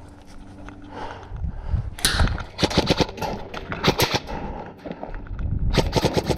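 Airsoft guns firing in rapid bursts of sharp snapping shots: a long run starting about two seconds in, and another short burst near the end.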